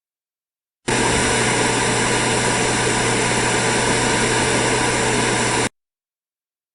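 Television static: a steady, loud hiss with a faint hum in it, starting about a second in, running for about five seconds and cutting off suddenly.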